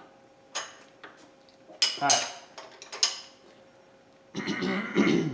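Metal parts and hand tools clinking and clanking as they are handled, with a few sharp clinks and a louder rattle near the end, over a faint steady hum.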